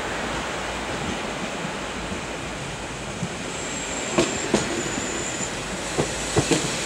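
Matterhorn Gotthard Bahn metre-gauge train rolling past along the platform. Its wheels clack over the rail joints several times in the second half, and a thin, high wheel squeal runs for about two seconds in the middle.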